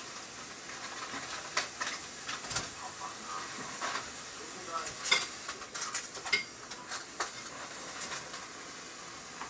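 Food sizzling in a frying pan on the stove, a steady hiss, with scattered clinks and scrapes of utensils being worked in the kitchen, the loudest clatter about halfway through.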